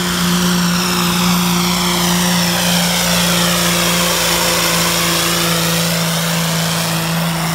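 Dodge Ram pickup's 5.9 Cummins inline-six turbodiesel running flat out under heavy load as it drags a pulling sled, a loud, steady drone; the truck passes close by about halfway through.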